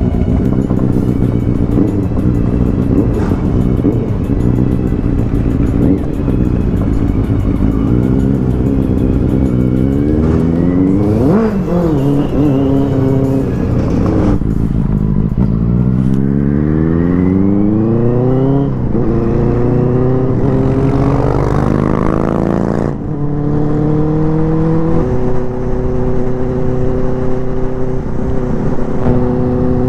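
Benelli TNT 600i's inline-four engine heard from the rider's seat, pulling up through the gears: the pitch climbs and drops back at each shift several times, then holds steady at a cruise for the last few seconds.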